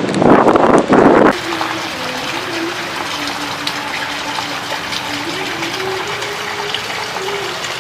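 Heavy rain falling steadily. A loud rush, likely wind buffeting, dies away about a second in, and a faint wavering hum runs under the rain.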